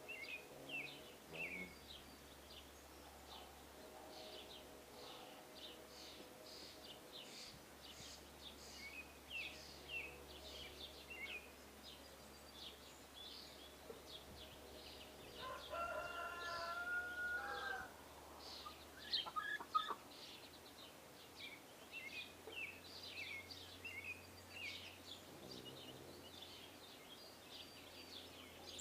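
Small songbirds chirping and twittering throughout, and a rooster crowing once, a drawn-out call lasting about two and a half seconds, a little past the middle. Just after the crow come a few sharp knocks.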